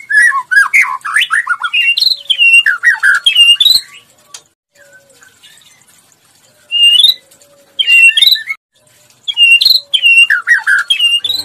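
White-rumped shama singing. It gives rapid, varied whistled phrases for the first four seconds, falls silent for a couple of seconds, then sings several short rising-and-falling whistled phrases in the second half.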